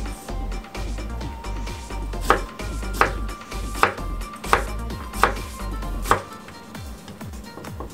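Kitchen knife slicing cucumber into thin strips on a wooden cutting board. A run of light quick taps comes first, then about six louder chops, roughly one every three-quarters of a second.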